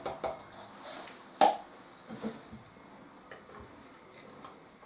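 A sharp knock about one and a half seconds in, then a few faint clinks as a spatula stirs partly frozen buttermilk and lye in a glass jug.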